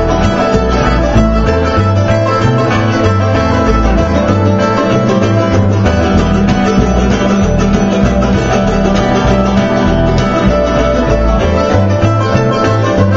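Bluegrass band playing an instrumental passage: acoustic guitar, mandolin and upright bass together, with a steady pulsing bass line under the plucked strings.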